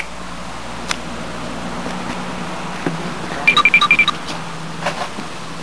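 A quick run of about seven short, high electronic beeps, a little past half-way, over a steady low hum.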